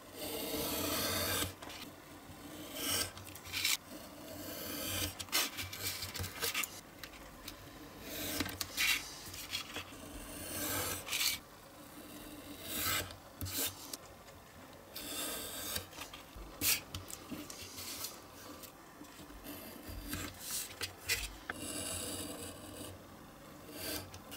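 Snap-off utility knife cutting through printed card along a metal ruler on a cutting mat: a run of irregular scraping strokes, each about half a second to a second and a half long.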